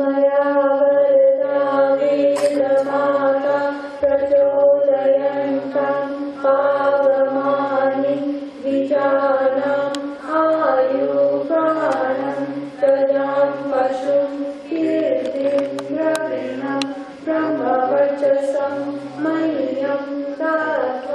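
Voices singing a Hindu devotional chant together, moving from note to note over a steady held drone tone.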